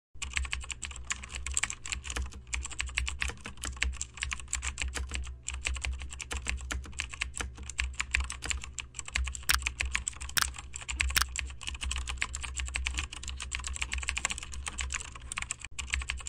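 Computer keyboard typing: a rapid, unbroken run of keystroke clicks with a steady low hum beneath.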